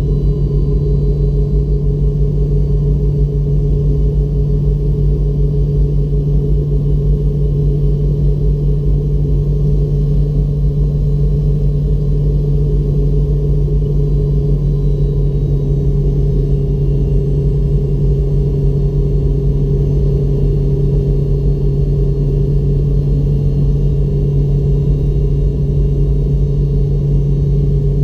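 Rolls-Royce Tay 620 turbofans of a Fokker 70 running steadily at low taxi power, heard inside the cabin: a steady loud drone with a low hum and a higher steady tone over it.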